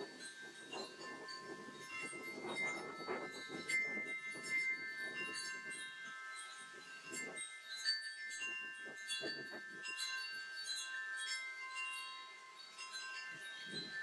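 Wind chime ringing irregularly in gusty wind, several clear high tones struck at random and overlapping as they ring on. Under it, the rush of wind and rustling leaves, heavier in the first half.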